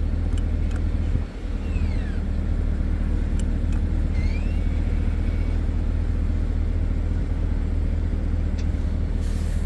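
A 2021 Chevrolet Corvette Stingray's 6.2-litre V8 idling steadily, heard from the driver's seat.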